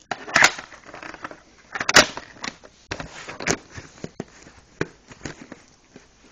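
VHS cassettes and their plastic cases being handled close to the microphone: irregular clicks, knocks and rustling, with the sharpest knocks about half a second and two seconds in.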